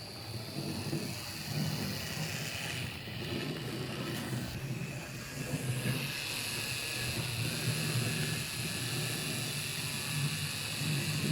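Fleischmann HO-scale BR80 model steam locomotive running on the track: a steady whine from its small electric motor and gearing over a low hum of wheels on rail.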